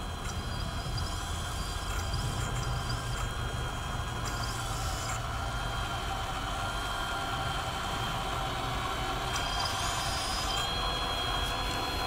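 Radio-controlled Fumotec Komatsu HM300 articulated dump truck model driving loaded over sandy ground, with a steady whine from its electric drive and gears. The whine rises in pitch about ten seconds in.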